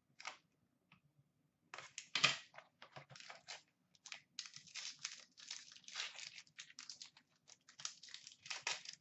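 Hands opening a small box of trading cards and handling the foil-wrapped pack inside: a few light handling noises, then from about two seconds in a close run of crinkling, rustling and small clicks of wrapper and cardboard.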